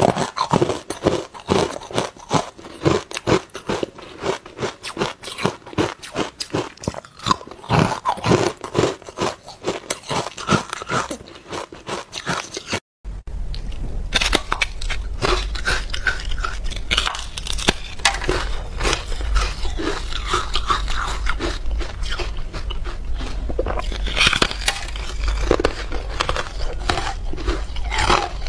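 Close-up crunching of ice being bitten and chewed, with rapid, crisp crunches from frosty carbonated ice cubes. About halfway through there is a brief dropout. After it the crunching comes from bites into a thick blue frozen slab, softer and more continuous, over a steady low hum.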